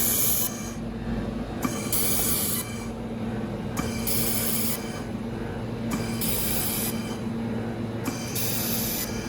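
Automatic laser welding machine working in cycles: a hiss about a second long comes roughly every two seconds, five times, over a steady hum from the machine.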